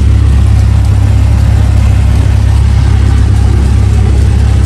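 Cessna 172's piston engine and propeller running steadily, a loud, deep drone heard from inside the cabin.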